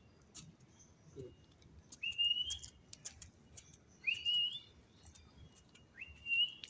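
A short whistle that rises and then holds its pitch, repeated three times about two seconds apart, with scattered light clicks between.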